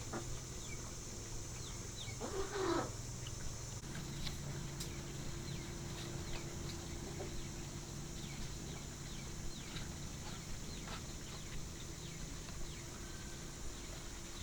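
Farmyard ambience: a chicken calls once, loudly, about two seconds in, while small birds chirp throughout over a steady high hiss.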